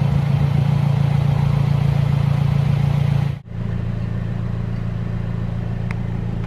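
Mercedes-Benz SLC200's turbocharged four-cylinder engine idling steadily, heard at the exhaust tailpipes. About three and a half seconds in, the sound cuts to the same idle heard from inside the cabin, a little quieter.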